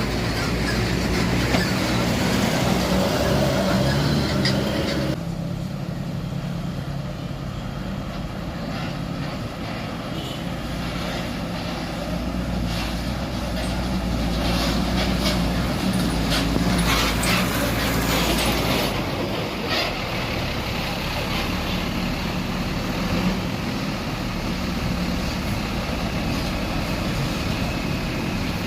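Road traffic with large buses' diesel engines running and passing. The sound changes abruptly about five seconds in.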